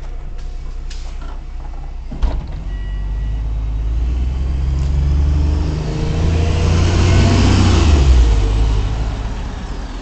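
Single-deck Arriva bus pulling away and driving past, its engine running louder as it comes by and fading as it goes off down the road. A single sharp knock about two seconds in.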